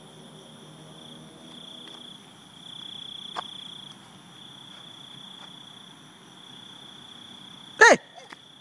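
Crickets chirring in a steady, unbroken high drone. Near the end, a short, loud, high-pitched cry cuts in over it.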